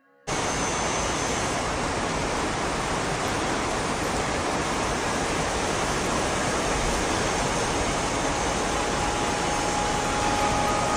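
Heavy rain falling as a steady, dense hiss that cuts in abruptly just after a brief silence.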